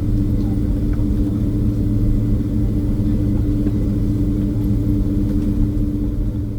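Inside the cabin of a Boeing 767-300ER taxiing after landing: a steady low rumble from the engines and airframe with a constant drone over it.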